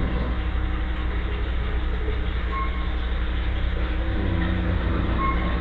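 Vehicle engine idling steadily with a constant low rumble.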